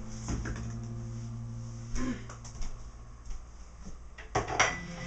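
Scattered kitchen clatter: a few sharp knocks and clicks from handling things at the counter, the loudest cluster near the end, over a faint low hum that fades out partway through.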